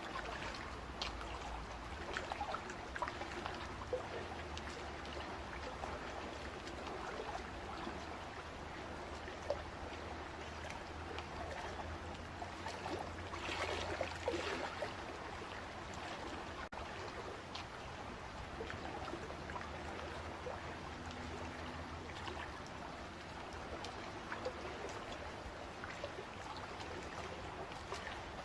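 Water flowing and trickling, with many small splashes and gurgles and a brief burst of livelier splashing about halfway through, over a steady low rumble.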